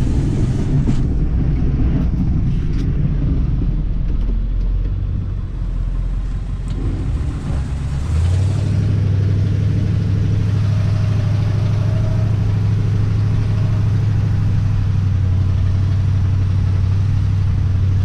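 Ford F-350 pickup's engine running under the plow, heard from inside the cab. About eight seconds in, the engine settles into a steadier, slightly louder low hum.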